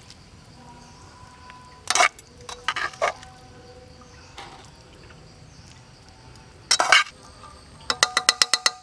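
Metal utensils knocking against cookware: single clinks about two seconds in, a few around three seconds and one near seven seconds, then near the end a quick run of about ten taps as a spatula stirs and knocks inside a metal cooking pot.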